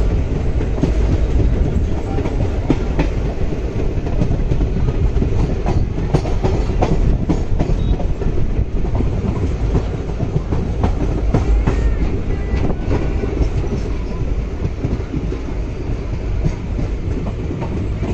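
Passenger train running at speed: a steady rumble from the coaches, with wheels clattering over rail joints.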